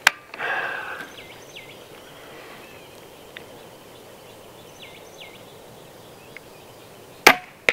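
Faint bird calls over a quiet range, then near the end one shot from a .22 Benjamin Marauder PCP air gun: a single sharp crack, followed by a second short sharp click about half a second later.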